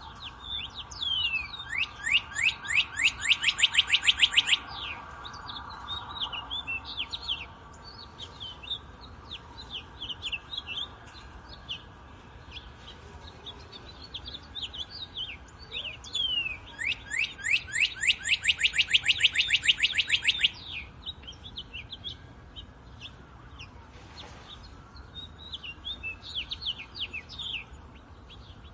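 Several wild birds chirping and calling together, with one bird twice giving a loud trill of rapid, evenly repeated downward-sweeping notes, each about three seconds long, near the start and again just past the middle.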